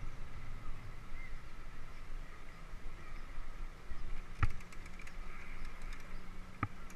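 Bicycle riding slowly, heard from a handlebar-mounted camera: a low, uneven rumble of wind and rolling on the microphone, with two sharp knocks from the bike jolting over bumps, about four and a half and six and a half seconds in.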